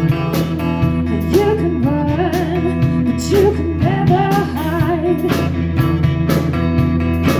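Live blues band playing: drums keep a steady beat over a sustained bass, with a wavering, bending lead melody through the middle.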